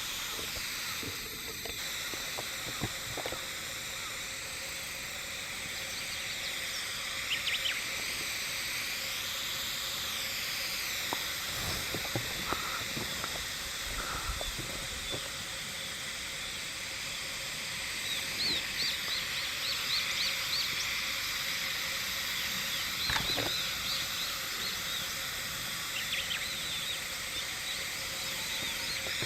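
Chorus of himeharuzemi cicadas (Euterpnosia chibensis) singing as a steady, dense hiss, with short higher chirps now and then over it.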